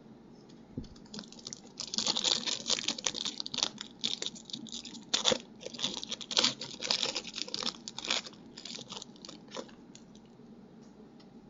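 A foil trading-card pack being torn open and its wrapper crinkled, a dense crackling run of rustles and sharp clicks from about a second in until near the end.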